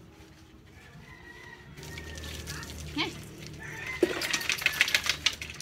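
Wet, soapy dog getting loose mid-bath on a slatted bamboo bench: a knock about four seconds in, then a quick run of rattling, splashing sounds as it moves about.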